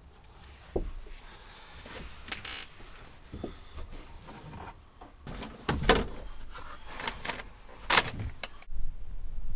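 Fabric curtains being hung up inside a van: cloth rustling with a scattering of light clicks and knocks against the van body, two of them sharper in the second half.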